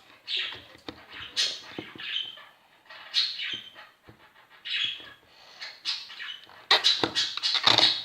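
Slime being squished and kneaded by hand, with irregular wet squelches and sticky crackles, growing denser and louder near the end.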